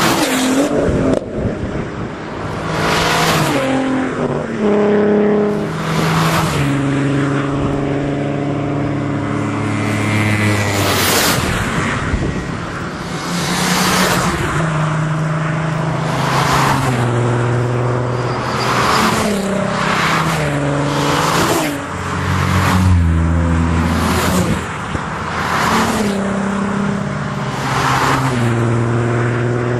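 A convoy of Volkswagen Golf R32s with 3.2-litre VR6 engines driving past one after another, about one every two seconds, each engine note dropping in pitch as the car goes by.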